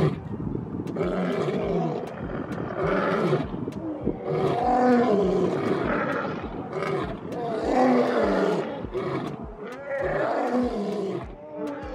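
Two male lions roaring together, a long bout of deep roars that repeat every second or two.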